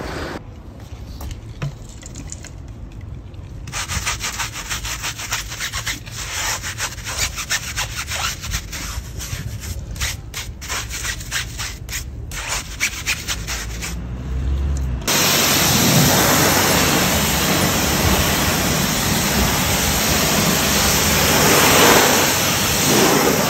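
A wheel brush and wash mitt scrub a soapy alloy wheel in repeated rubbing strokes. About fifteen seconds in, a pressure washer starts abruptly, and its jet hisses steadily on the wheel to rinse off the suds.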